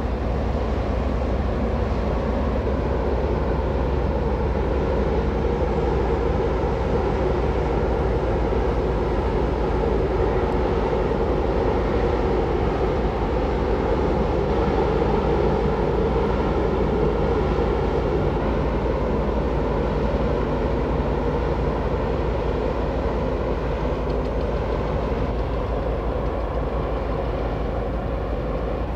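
Large freight ship passing close by: a steady low diesel engine drone with a rushing wash of water along the hull, growing a little louder midway as the engine room and superstructure go by.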